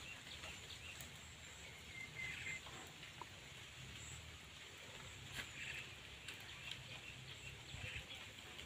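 Faint bird chirps now and then over a low outdoor rumble, with a few light clicks of dry sticks and palm stems being laid on a smouldering fire.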